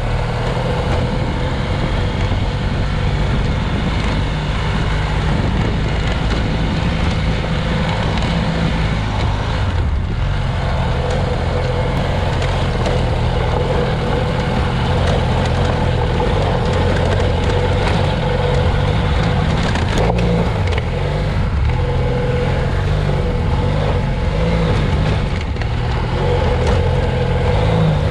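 BMW F800GS parallel-twin engine running under way on a dirt track, its note stepping up and down with the throttle. Steady wind and tyre noise run underneath.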